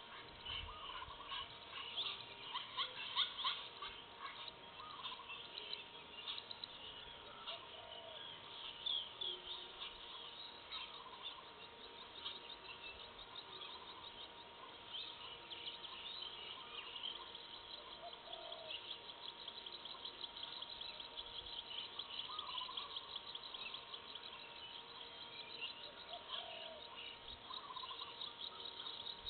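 Forest ambience of small birds chirping and twittering, with insects trilling in rapid ticking pulses. A lower, short call sounds three times, several seconds apart.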